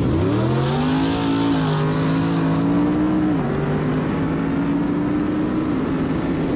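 Race car accelerating hard at full throttle down a drag strip. The engine's pitch climbs steeply from the start, then drops back several times as it shifts up through the gears.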